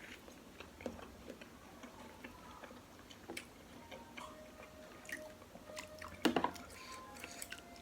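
Close-miked chewing of beef rib meat and bakso meatball soup: soft, wet mouth sounds with many small clicks, and a brief cluster of louder clicks about six seconds in.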